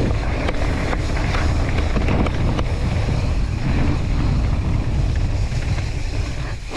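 Mountain bike descending fast on a loose gravel trail, heard from a camera on the rider: heavy wind buffeting on the microphone over the crunch of tyres on gravel and the odd rattle from the bike. The noise drops away near the end as the bike slows.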